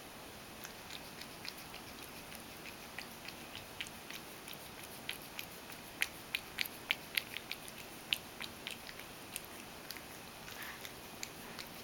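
Ragdoll cat lapping milk from a stainless steel bowl: a run of short wet clicks, faint and scattered at first, then louder in a quick series of about three laps a second around the middle.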